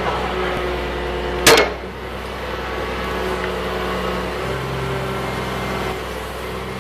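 A steady mechanical hum with several low, even tones, broken by one sharp click about one and a half seconds in.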